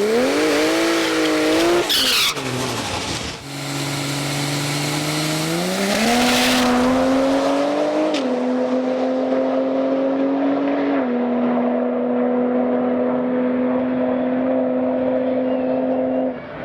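Drag car accelerating hard down the strip: the engine note climbs and drops back at each of several gear changes, then holds steady at high revs as the car pulls away, sounding duller as it gets farther off.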